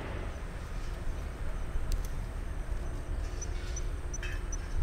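Outdoor ambience: a steady low rumble, with faint, evenly spaced high chirps, about three a second, in the last second and a half.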